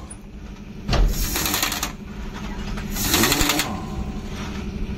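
Two bursts of rapid mechanical rattling from tool work on a truck's leaf-spring mounting under the chassis, the first about a second long starting about a second in, the second shorter about three seconds in. A steady low engine-like hum runs underneath.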